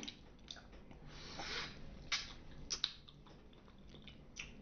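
Close-miked mouth sounds of someone chewing soft fruit: scattered wet clicks and smacks, with a brief squelch about a second and a half in.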